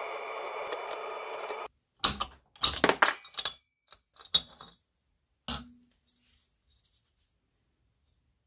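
A steady rushing noise stops abruptly about a second and a half in. Then comes a cluster of sharp metallic clinks and knocks over about three seconds, ending in a duller knock, as the piston is worked off a Vespa Rally 200 two-stroke engine on the bench.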